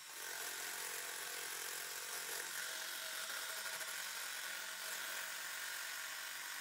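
Electric hand mixer whirring steadily, its beaters whipping eggs in a stainless steel bowl.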